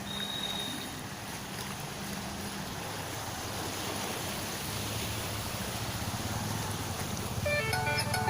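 Storm water running along a flooded street, a steady rushing noise with a low hum beneath it. Near the end a brief pitched call sounds, stepping through a few notes.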